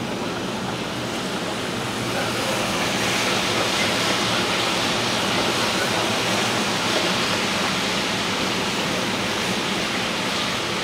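Heavy hurricane rain pouring steadily, a dense hiss that grows louder about two seconds in.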